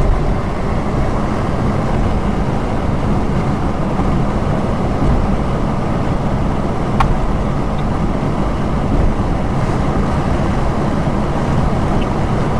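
Steady cabin noise of a Ford Escort station wagon cruising at about 70 mph on the highway: an even low rumble of engine, tyres and wind, with one brief click about halfway through.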